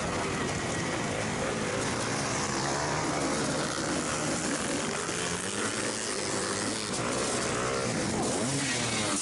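Onboard sound of a supermoto motorcycle racing on a muddy dirt section. Its engine is revving, the pitch rising and falling, over steady wind noise on the microphone.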